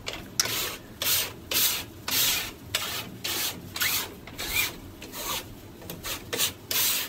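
A large hand-held scraping tool dragged over a painted canvas in short, repeated strokes, about two a second, each a dry scrape across the paint.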